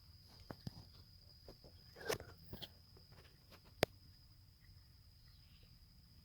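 Scattered soft crackles and sharp clicks, like footsteps or brushing through dry leaves and twigs, with a louder crackling cluster about two seconds in and one sharp click near four seconds, over a steady high-pitched whine.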